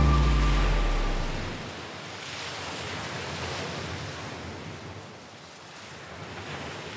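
Sea waves washing, a soft rushing hiss that swells and fades twice, after the last low note of the music dies away in the first second or so.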